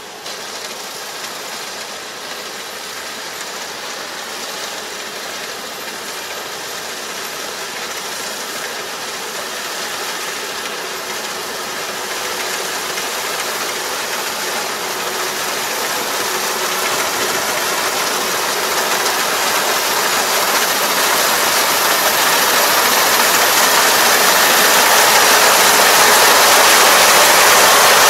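Kubota ER470 four-row combine harvester running, a steady mechanical noise with a faint whine, growing gradually louder throughout.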